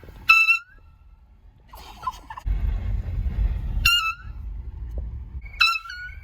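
Handheld air horn blown in three short, loud blasts, each about a third of a second long and dipping in pitch as it cuts off: one near the start, one about halfway through, one near the end. A low vehicle rumble runs underneath.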